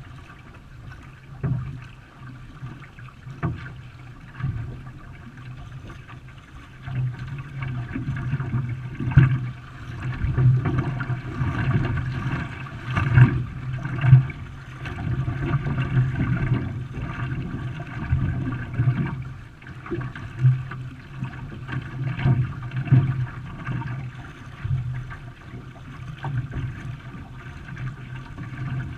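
Water rushing and splashing against a canoe as it is paddled, with louder surges every second or two.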